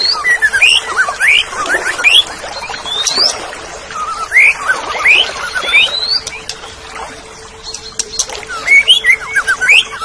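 Greater green leafbird (cucak ijo) singing: a lively string of quick, sharply rising whistled notes in clusters, with brief pauses between phrases. A faint steady low hum runs underneath.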